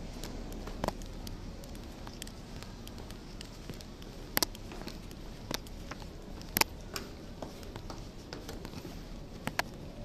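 Footsteps on a hard tiled floor and then on carpeted stairs, heard as scattered, irregular sharp taps and clicks over a steady low hum. The two loudest clicks come about midway through.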